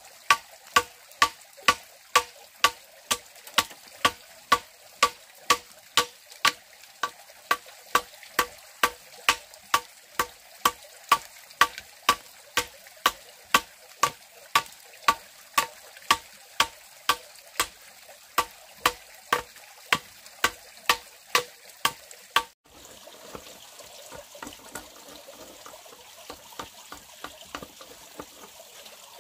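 Sharp knocks repeating steadily about twice a second, each with a brief ringing tone. They stop abruptly about 22 seconds in, leaving only a faint steady hiss.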